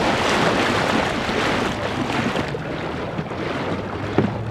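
Steady rushing of wind on the microphone mixed with small lake waves lapping close by, with a single sharp knock about four seconds in.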